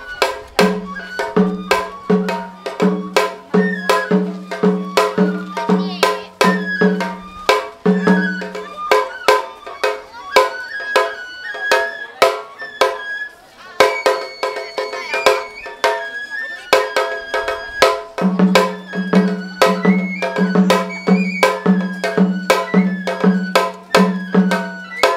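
Japanese festival hayashi music: a bamboo transverse flute plays a melody over rapid stick drumming. A deeper drum beat comes about twice a second at first, drops out for several seconds around the middle, then returns near the end.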